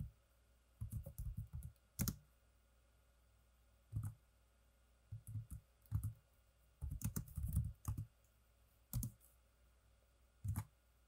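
Keystrokes on a computer keyboard, typed in short irregular clusters of clicks with pauses between.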